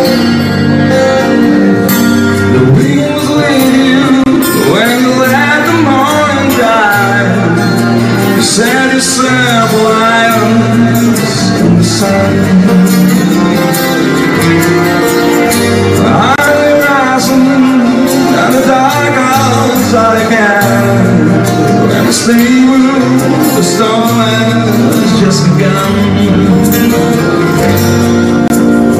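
Live acoustic band: two acoustic guitars playing a slow song with light hand percussion ticking along, and a male voice singing over them.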